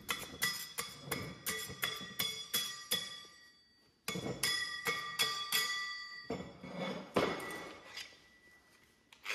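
Plasma-cut steel plates and braces knocking and clinking against one another and the metal bench top as they are handled. Each knock leaves a clear metallic ring. There is a brief pause about three and a half seconds in.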